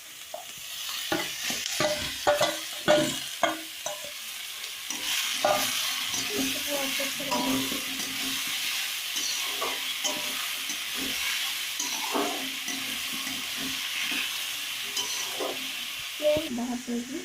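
Pounded raw amla (Indian gooseberry) frying in hot ghee in a kadhai with a steady sizzle, while a spoon scrapes and knocks against the pan as it is stirred. The knocks come thickest in the first few seconds; the sizzle grows louder from about five seconds in and falls away near the end.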